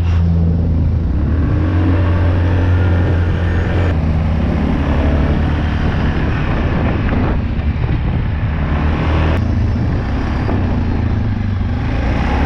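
Off-road vehicle engine running hard at speed, a steady loud drone with rough noise over it and small rises and falls in pitch.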